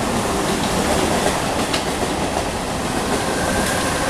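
Western Railway 'Millennium' EMU local train running through a station at speed without stopping: a steady rumble of passing coaches, with the wheels clacking over rail joints.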